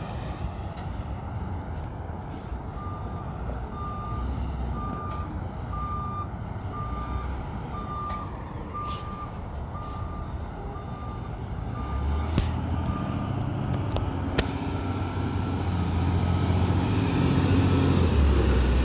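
Peterbilt 520 garbage truck's reverse alarm beeping steadily about once a second for some ten seconds over its idling diesel engine. The engine then grows louder as the truck drives up close.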